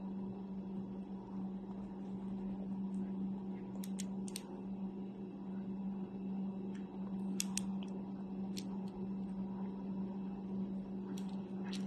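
A steady low hum with a few short, sharp clicks scattered through it, coming in small clusters.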